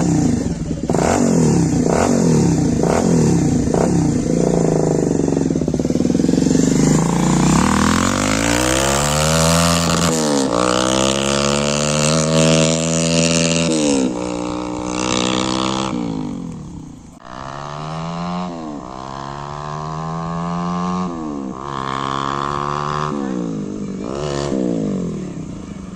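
Bajaj Pulsar 220F's single-cylinder engine breathing through an aftermarket exhaust, running and then revved over and over. The pitch climbs and drops back in about eight short blips.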